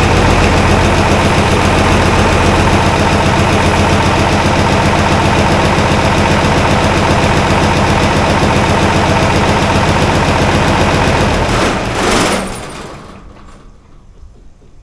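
M35A2 deuce-and-a-half's multifuel turbo-diesel inline-six idling steadily with diesel clatter, then shut off about twelve seconds in, running down within a second.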